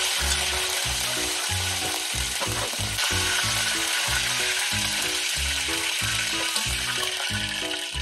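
Battered capelin deep-frying in hot oil, a dense steady sizzle.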